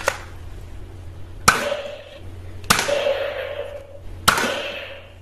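Toy pistol fired four times, roughly one and a half seconds apart. Each shot is a sharp snap followed by a ringing hum that fades over about a second.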